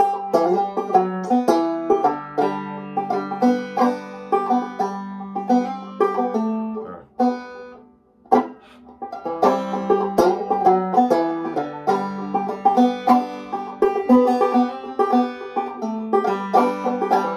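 Gold Tone five-string banjo in open G tuning (gDGBD) played clawhammer style: a turnaround lick picked slowly, note by note. The playing breaks off about seven seconds in, the strings ringing down for about a second, then starts again.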